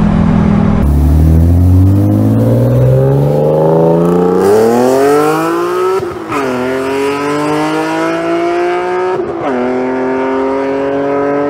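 BMW M3 inline-six accelerating hard and passing, its engine note climbing steadily and dropping back at upshifts about six and nine seconds in. It opens with about a second of an Audi five-cylinder running steadily, heard from inside the cabin, before the cut.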